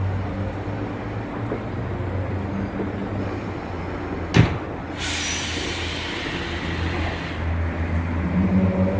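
MTR East Rail Line MLR electric train standing with a steady low hum from its equipment. About four and a half seconds in there is a sharp clunk, then a hiss of released compressed air for a couple of seconds.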